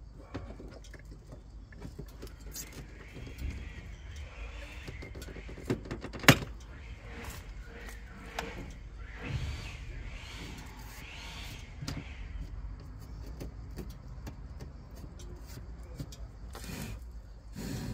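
Small plastic clicks and rattles, with one sharp snap about six seconds in, as a Porsche's front side-marker turn-signal lamp is pried out of the wing and unplugged from its wiring.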